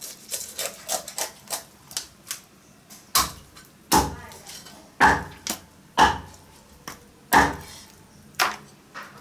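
A cleaver chopping a chicken into pieces on a cutting board: light taps at first, then heavy single chops roughly once a second.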